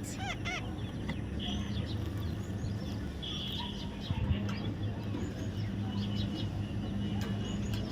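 Faint, scattered bird chirps and short calls over a steady low hum.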